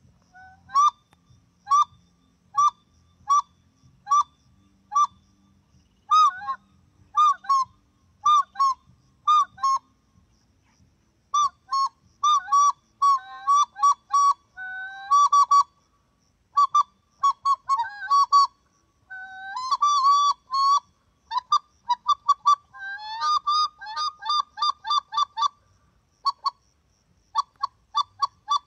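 Reyoka goose call, mouth-blown, giving single honks about once a second. After a short pause it breaks into faster runs of honks, ending in a quick string of short honks.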